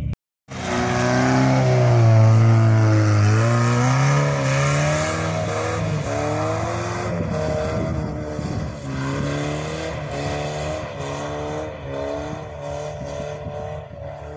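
Off-road SUV engine revving hard under load as it climbs a muddy slope, its pitch rising and falling with the throttle. It is loudest a couple of seconds in and slowly fades toward the end.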